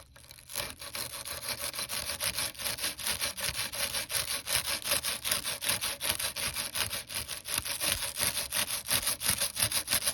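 Quick back-and-forth rubbing on an aluminum window frame, working an acidic brightening cleaner into the tarnished metal. The strokes come about five a second, starting about half a second in after a brief hush.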